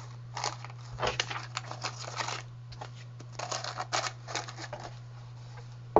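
Phone accessories in plastic bags being packed back into a cardboard phone box: two bursts of small clicks, taps and plastic crinkling.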